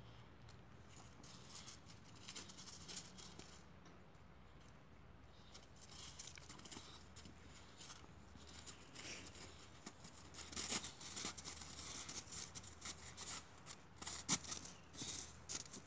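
Two boxer dogs scuffling on crusty snow: faint at first, then from about ten seconds in a quick run of sharp crunching and crackling clicks from their paws and play, loudest near the end.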